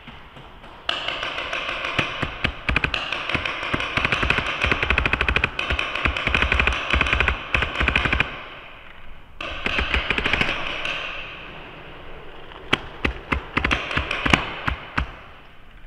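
Paintball markers firing fast, near-continuous strings of shots for several seconds, then after a short break another string, and a run of separate shots near the end.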